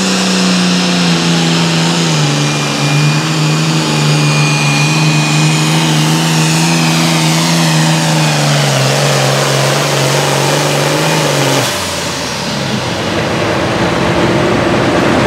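Turbocharged diesel engine of an International Super Farm pulling tractor running flat out under load as it pulls the sled, its note stepping down slightly twice, with a high whistle that falls away in the second half. About twelve seconds in the throttle is cut as the pull ends and the engine note drops away.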